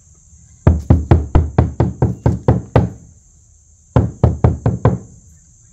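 Hammer driving nails through the nailing hem of a vinyl siding panel into the shed wall: two runs of quick strikes at about four a second, the first of about ten blows, the second of about six. The nails are deliberately left short of flush so the siding can shift side to side.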